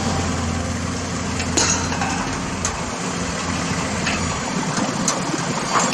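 Engine of a large Caterpillar forklift running steadily as the forklift drives and turns, with a low hum and a few light knocks.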